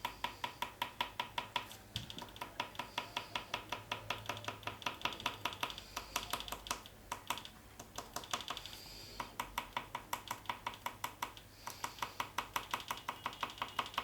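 Oil pastel stick tapped rapidly against paper to make small red dots, about five taps a second in runs broken by short pauses.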